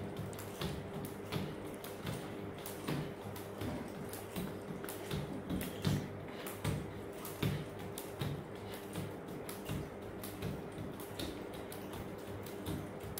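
Skipping rope slapping a tiled floor in a steady rhythm, a little more than one slap a second, with a child's bare feet landing on the tiles in time with each turn.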